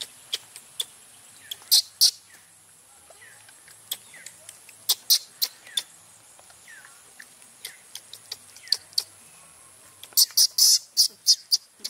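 Baby macaque giving short, shrill squeals in scattered bursts, with a quick run of them near the end; an upset, angry baby monkey.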